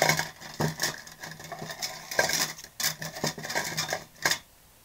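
Wooden craft sticks clattering and rattling against one another as they are stirred and picked through in a container, stopping about four and a half seconds in.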